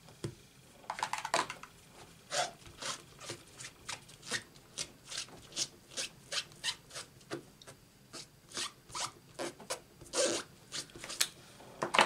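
Brisk back-and-forth rubbing strokes, about two or three a second: a rubber stamp with black ink on it being scrubbed or wiped clean.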